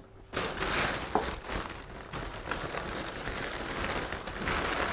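Plastic carrier bag rustling and crinkling as a hand rummages inside it, a little louder near the end.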